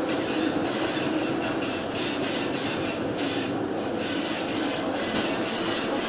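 Storm wind and heavy seas heard from aboard a ship: a steady rumbling noise with a flickering hiss above it.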